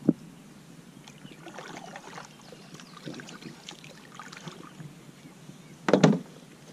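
A kayak being paddled: a double-bladed paddle dips and splashes in the water with each stroke. There is a sharp knock right at the start, and a louder short thump about six seconds in, as the paddle or hull bumps.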